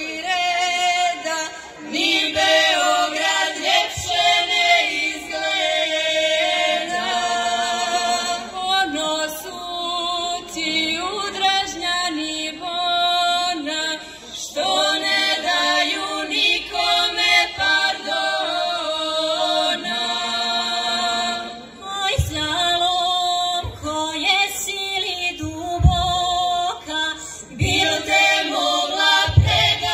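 Women's folk choir singing traditional Herzegovinian village songs unaccompanied, in group harmony, with a few short low thumps near the end.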